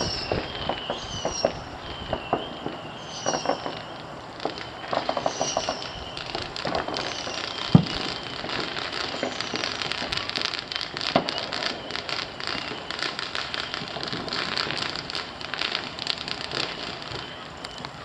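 Fireworks going off: scattered pops, one loud bang about eight seconds in, then dense crackling from many small bursts for most of the rest. A high falling tone repeats about once a second over the first few seconds.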